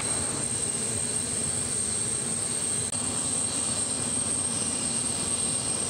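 Steady aircraft turbine noise: a constant high whine over an even broad rumble.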